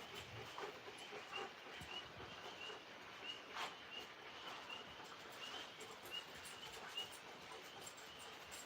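Tree frogs calling: a faint chorus of short, high chirps at one steady pitch, repeating about once or twice a second, with a few soft clicks and rustles.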